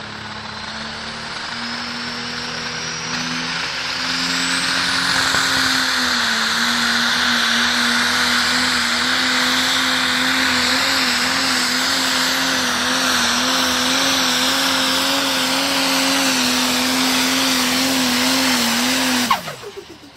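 Landini pulling tractor's turbo diesel engine at full power hauling the sled, its note climbing over the first few seconds and then holding with a slight waver, with a high turbo whine rising early on. Near the end the revs drop sharply.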